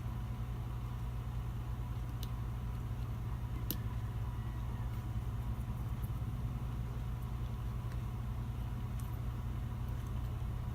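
Steady low mechanical hum, like a motor running, with a few faint light clicks.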